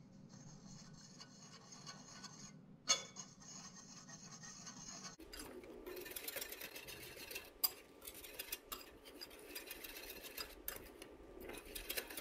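Wire whisk stirring dry flour and cocoa powder in a glass bowl: a soft, steady scratchy rubbing, with light ticks of the wires against the glass through the second half.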